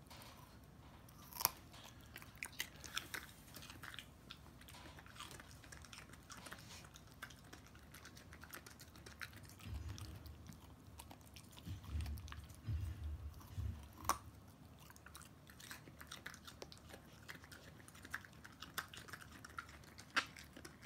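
A pomsky dog crunching and chewing a raw carrot: an irregular string of sharp, loud crunches with pauses between bites, the loudest about a second and a half in. Some low thuds come in the middle.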